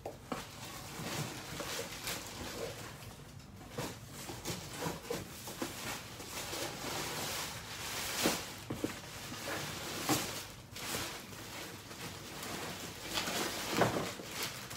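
Irregular rustling and crinkling with light knocks and taps as handbags wrapped in plastic are dug out of a cardboard shipping box.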